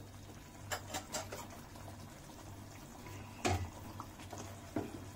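A perforated metal masher working through soft cooked vegetables in a metal kadai: wet squishing with a few scattered clicks and knocks of the masher against the pan. The loudest knock comes about three and a half seconds in.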